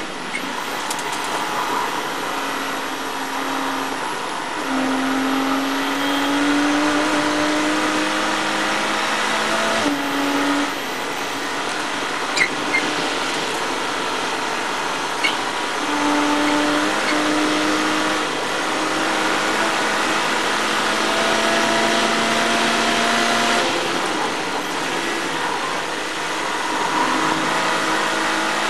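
Porsche Cayman race car's flat-six engine at high revs, heard from inside the cockpit. The engine note rises slowly through long pulls and dips a few times, over steady wind and road noise.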